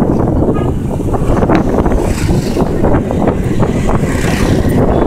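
Wind buffeting hard on a moving phone microphone, a dense rumble full of uneven thumps, mixed with passing motor traffic; a motorcycle goes by close in the second half.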